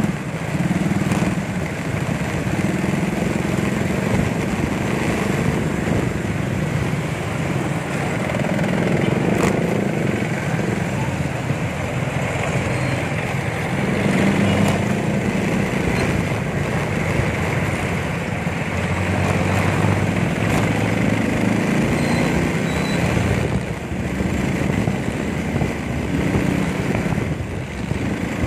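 Small motorcycle engine running while riding along a road, its pitch shifting up and down with speed, over a steady rush of road noise.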